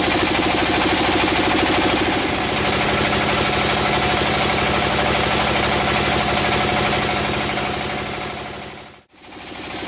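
Band sawmill running steadily, its motor driving the band blade through a log. The sound fades out briefly and comes back about a second before the end.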